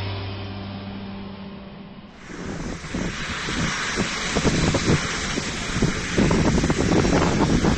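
Intro music fading out, then from about two seconds in, wind buffeting the microphone over a steady, distant jet engine roar across the airfield.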